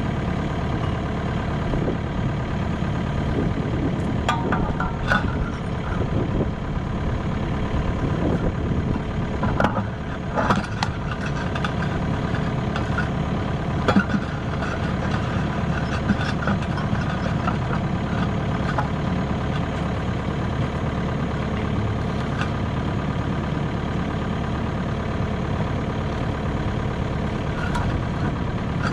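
Kubota KX080-3 excavator's diesel engine idling steadily, with a few sharp metallic knocks and clinks, around four, ten and fourteen seconds in, as the new pin is worked into the quick connect and thumb.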